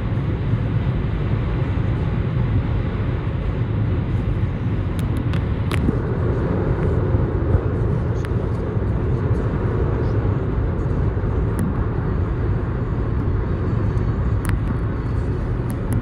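Steady road and wind noise of a car driving at speed, heaviest in the low end, with a few small faint clicks scattered through.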